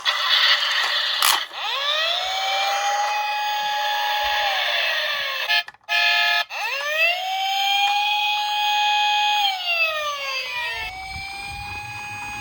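Japanese-style police car wail siren, sounded as a toy or siren effect. It rises, holds a high note for a few seconds, then falls, and repeats about every four to five seconds, with a brief break a little before the middle.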